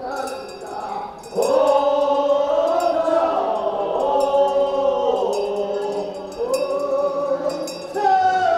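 A group of voices singing a Korean funeral bier song (sangyeo sori) together in long, held notes, with a handbell clinking steadily through it. The voices come in strongly about a second and a half in and again near the end.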